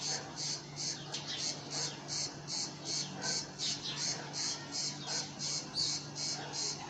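Insects chirping in a steady, even pulse of about three high-pitched bursts a second, with short bird chirps scattered among them.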